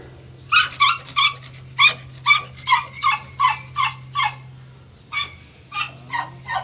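German Shepherd yelping during mating: a quick run of short, high yelps, about three a second, then a pause of about a second and a few more yelps.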